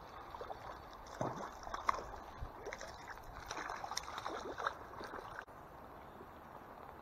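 A small hooked trout thrashing and splashing at the water's surface, irregular splashes over the steady rush of the stream, stopping abruptly about five seconds in.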